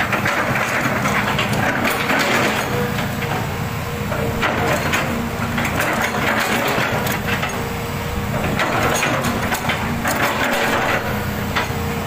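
Hitachi hydraulic excavator running steadily, a constant whine over the engine, while its steel bucket scrapes and crunches through debris on the ground with many short cracks and knocks.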